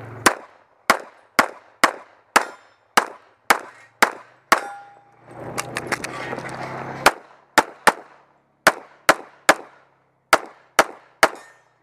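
Semi-automatic pistol firing single shots at an even pace of about two a second: about nine shots, a couple of seconds of movement noise, then about eleven more. One shot about four and a half seconds in is followed by a short ring, typical of a bullet striking a steel target.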